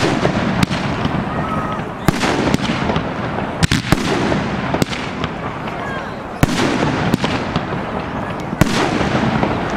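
Professional aerial firework shells bursting overhead: about seven sharp booms at uneven intervals of one to two seconds, over a continuous noisy rush and crackle.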